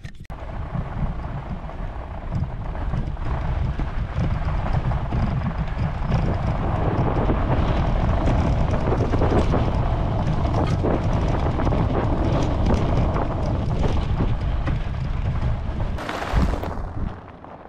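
Wind buffeting the microphone and the tyre rumbling over sand as a bike rides fast across dunes. The noise builds over the first few seconds as speed picks up, holds steady, and swells once more shortly before it drops away near the end.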